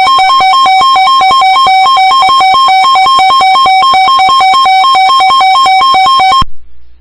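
Loud electronic alert tone switching rapidly back and forth between a lower and a higher pitch, then cutting off suddenly near the end. It is the attention signal that introduces a broadcast severe weather warning.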